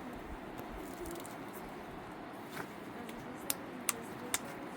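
A run of sharp, evenly spaced clicks, a little over two a second, starting about three and a half seconds in over a steady low background noise.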